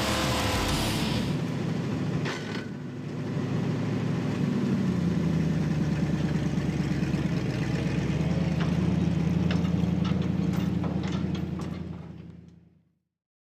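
A vehicle engine running with a rapid, even firing pulse. It grows louder about four seconds in, then fades away near the end.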